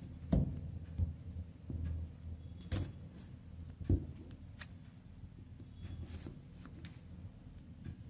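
Scissors cutting and prying at the plastic shrink-wrap on a small cardboard box, with a few sharp clicks and knocks as the blades and box are handled, over a low steady hum.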